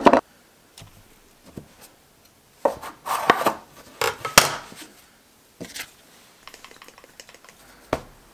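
Pierogi dough being handled on a kitchen worktop: scattered knocks and taps of a dough scraper and hands on the surface, with short scraping and slapping sounds as the dough is pressed and kneaded. The busiest stretch is around the middle.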